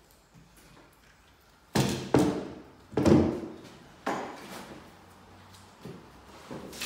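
Wooden window sash with its glass laid down flat on a wooden floor: several separate knocks and thuds, the loudest about three seconds in.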